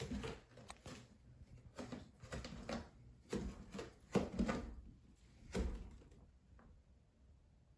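A run of irregular knocks and scuffles, loudest about four seconds in and fading out after about six seconds.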